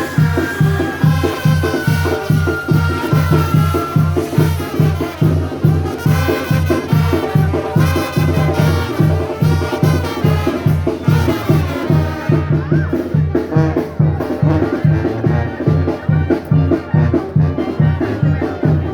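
Upbeat Latin dance music with brass and a steady, fast beat. A high tone glides slowly down during the first few seconds.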